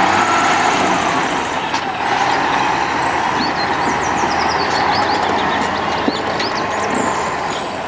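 A large eight-wheeled dump truck driving along a dirt track, its diesel engine running steadily under tyre and road noise.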